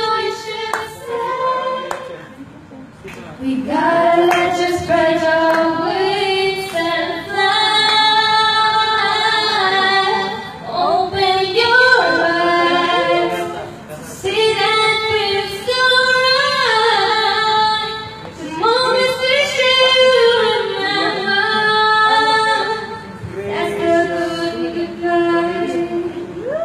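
A young woman's solo voice singing a song into a handheld microphone, in phrases with long held notes and short pauses between them. No accompaniment is heard.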